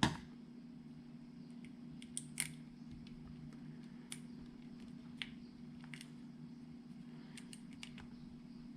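Faint, scattered small clicks and ticks of a small screwdriver and screws being worked on a plastic micro servo case, about eight in all, over a steady low hum.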